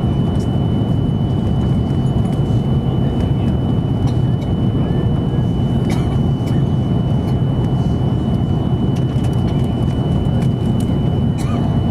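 Airbus A330-200 cabin noise in flight: a steady low drone of engines and airflow with a thin, steady high whine over it and a few faint ticks.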